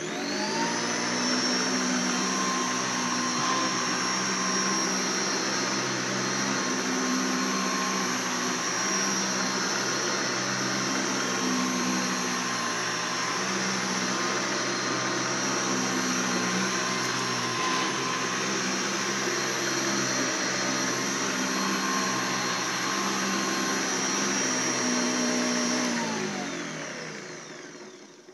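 A 1990 Hoover Encore convertible upright vacuum cleaner switched on, its motor spinning up in about a second to a steady running whine, then switched off near the end and winding down in pitch over a couple of seconds. It runs on an old spare drive belt that needs replacing.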